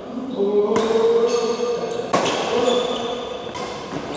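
Badminton rally: rackets strike the shuttlecock three times, about a second and a half apart, each hit a sharp crack that rings on in a large echoing hall.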